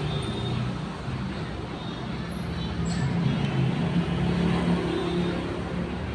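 A steady engine rumble with a low hum, getting a little louder about halfway through.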